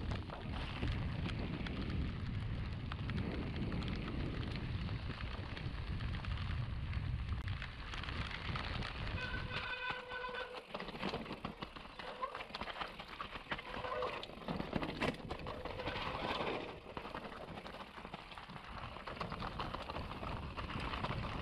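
Mountain bike riding on a dirt trail: wind buffeting the camera microphone with tyre and trail noise and rattling clicks from the bike. About ten seconds in, the wind noise eases and a brief high whine sounds for about a second.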